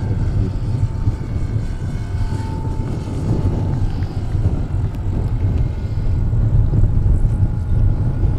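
Engine and propeller of a large radio-controlled scale model of a Dewoitine D.26 in flight, a thin steady drone. It sits under a loud, uneven low rumble.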